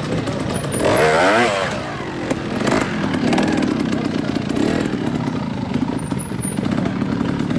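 Trials motorcycle engine running, with quick throttle blips about a second in that make the pitch rise and fall rapidly, then a steadier low running note with a few short knocks.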